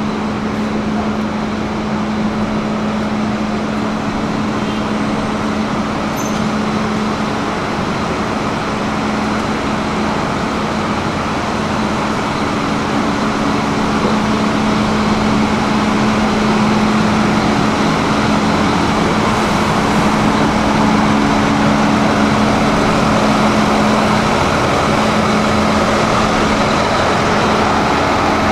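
City bus engines running at a bus station: a steady low hum with a constant drone, getting louder from about halfway as a red-and-white Solaris city bus draws close.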